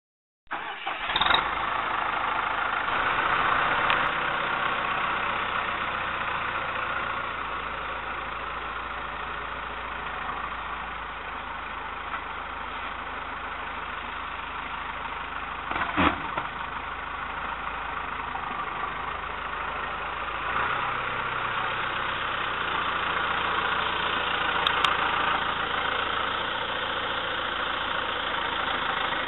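Tractor diesel engine running steadily, with one knock about halfway through.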